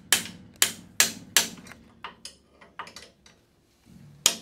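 Hammer blows on steel, driving a stuck bolt out of a truck's front suspension: a run of sharp, ringing strikes about two or three a second, then a few lighter taps, a short pause, and one more hard strike near the end.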